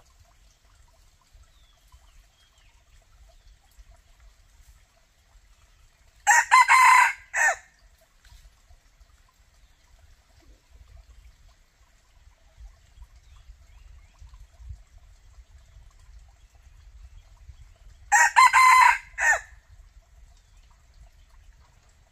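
Red junglefowl rooster crowing twice, about twelve seconds apart. Each crow is short and broken, ending in a clipped final note.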